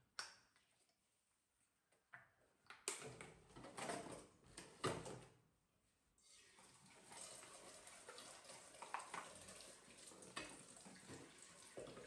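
A few short clatters of dishes being handled in a steel sink, then from about six seconds in a kitchen tap running into the sink with a faint, steady hiss.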